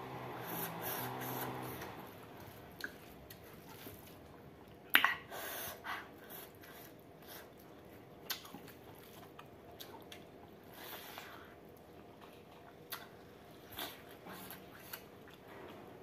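Close-up eating sounds: chewing and wet mouth sounds with scattered sharp clicks and short crunches, the loudest about five seconds in, as rice mixed with perilla seed pork curry is eaten by hand. A low hummed voice sound is heard in the first two seconds.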